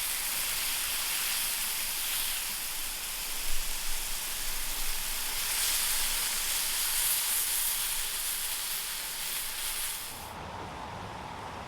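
Food frying in a hot pan: a steady sizzling hiss that cuts off abruptly about ten seconds in.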